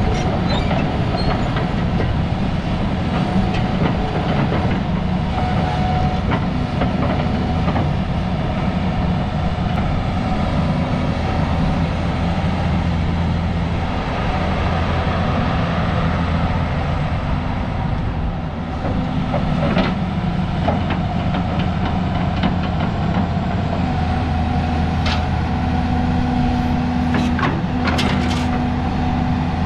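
Daewoo SL400LC-V hydraulic excavator running and working its boom, arm and swing: a steady diesel engine note that shifts now and then as the load changes. Several sharp clanks come near the end.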